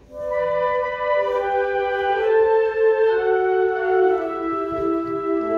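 Concert band coming in together on sustained wind chords, the held notes moving slowly from one chord to the next, with a lower brass note joining near the end.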